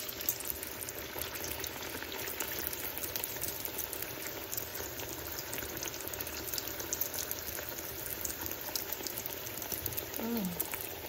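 Hot oil sizzling and bubbling steadily around a slab of dough deep-frying in a pan, with many small pops and crackles.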